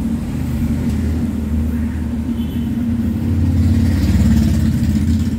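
Steady low mechanical rumble that swells louder for about a second and a half past the middle, fitting a Honda Civic FD's electric fuel pump, out of its tank and dipped in fuel, being run on key-on for a fuel pressure test.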